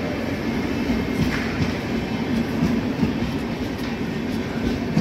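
Passing Indian Railways express train of LHB coaches: the steady rumble of wheels on the track, with repeated clicks as the wheels run over rail joints.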